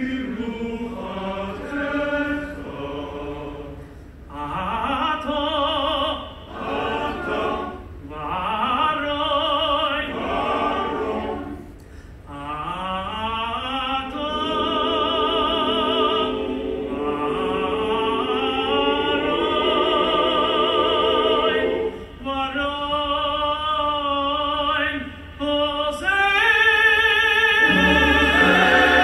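Cantor singing a solo cantorial (chazzanut) liturgical chant with heavy vibrato and ornate runs, in phrases broken by short breaths. About three seconds before the end a male choir comes in and the sound swells louder.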